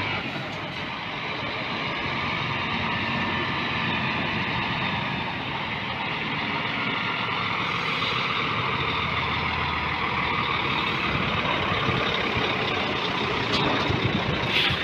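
Scania P 440 XT 8x4 truck's 13-litre straight-six diesel running at low speed as the truck moves slowly past, with a short hiss near the end.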